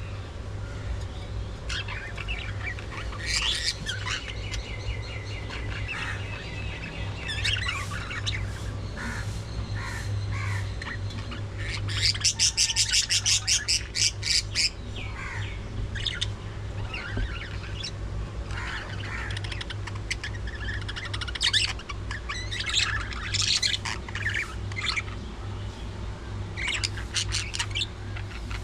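A flock of budgerigars chirping, chattering and squawking continuously. About twelve seconds in, one bird gives a fast run of loud, sharp repeated calls, several a second, lasting two or three seconds.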